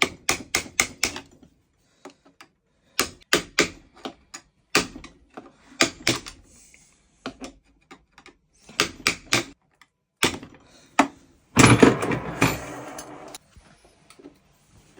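Quick runs of sharp metal taps and clicks as a screwdriver is worked against a bolt with a snapped-off Allen key drilled into it, with a louder scraping rush about twelve seconds in.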